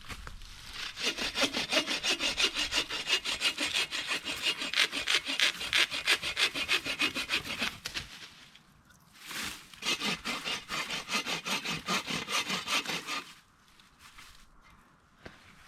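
Hand saw cutting through a piece of firewood in quick back-and-forth strokes, about three a second. It cuts in two runs, pausing briefly about eight seconds in and stopping about thirteen seconds in.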